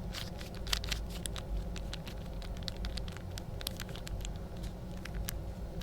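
Mini Rubik's cube being twisted close to the microphone: the plastic layers rotate with soft, irregular clicks as the pieces slide against each other.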